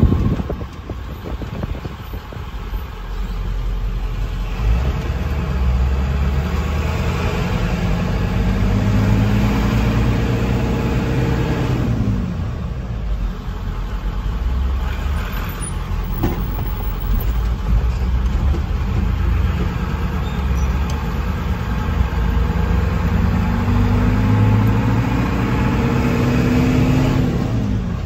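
Manual-transmission truck's engine heard from inside the cab over road and tyre noise, accelerating with its pitch climbing, then dropping back as it shifts. This happens twice, once about halfway through and again near the end.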